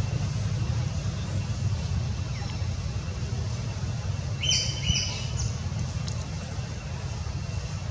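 Steady low rumble with three short, high bird chirps about halfway through.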